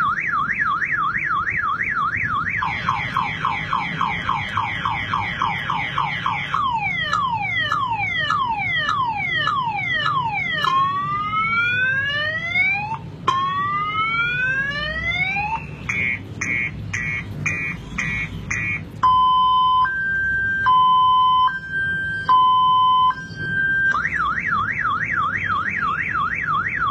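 Electronic car alarm cycling through its tone patterns: a fast up-and-down warble, then falling chirps, rising whoops, quick repeated beeps and a slow two-tone high-low alternation, before the warble returns near the end.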